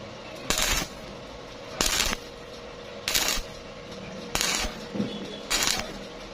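Stick-welding arc on thin steel tube struck in short bursts of crackling, five times at an even rhythm about every 1.3 seconds: the stop-start stitch technique used to keep from burning through thin metal.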